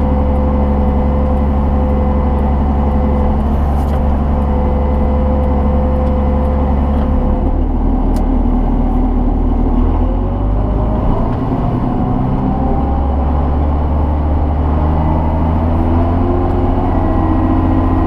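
John Deere 7600 tractor's six-cylinder turbo diesel engine running steadily, heard from inside the cab while pulling a batwing rotary mower. Its pitch shifts briefly about halfway through, then settles again.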